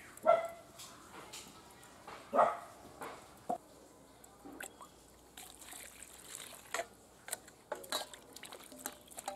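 Cut potato pieces dropping and being stirred in a steel bowl of water: small splashes and clinks in the second half. Two short, loud calls come near the start and about two seconds later.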